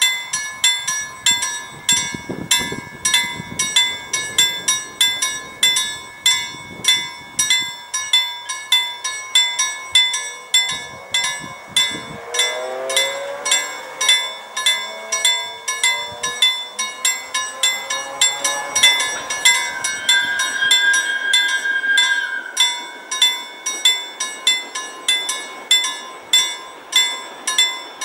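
Level-crossing warning bell ringing in quick, evenly repeated strokes as the crossing barriers come down, warning of an approaching train.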